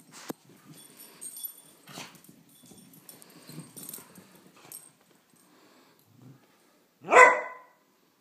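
Two dogs, a Beagle mix and a Great Pyrenees, at play: scattered scuffles and light knocks of paws and bodies for the first few seconds, then a single loud bark about seven seconds in.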